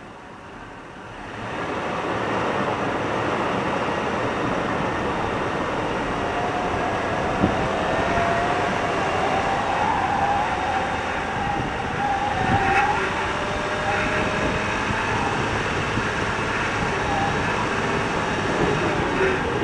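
Four-wheel drive driving on beach sand: steady vehicle running noise that swells up about a second and a half in as it gets under way, with a faint wavering whine over it.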